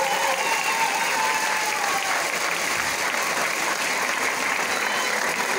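Steady applause from many people clapping, with a voice heard over it in the first couple of seconds.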